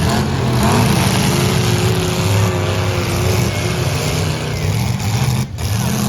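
Demolition derby cars' engines running and revving loudly together.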